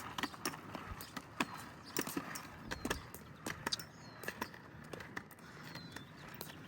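Walking footsteps on a trail with a dog's collar tags jingling: irregular light clicks and jingles, a few each second.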